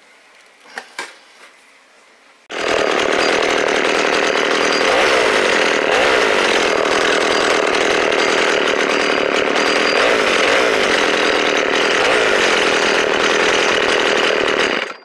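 Two-stroke chainsaw engine running steadily at a fast idle for about twelve seconds, starting abruptly after a few light clicks and cutting off suddenly near the end.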